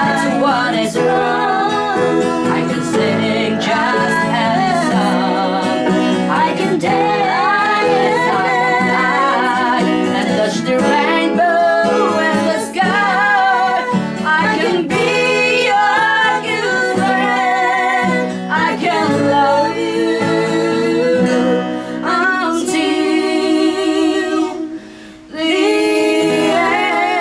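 A song performance: a female voice singing wavering, held notes over acoustic guitar accompaniment. The music drops away briefly about 25 seconds in, then resumes.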